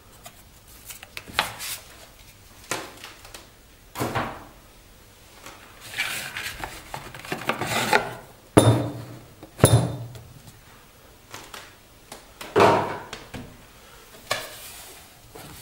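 Cardboard watch presentation box being handled: scattered knocks and taps with stretches of sliding and rubbing as the lid is fitted back on, and two sharper knocks about a second apart near the middle.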